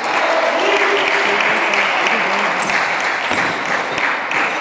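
Table tennis hall in play: sharp clicks of celluloid balls off paddles and tables from the nearby matches, scattered over a dense, even clatter and hubbub that fills the hall.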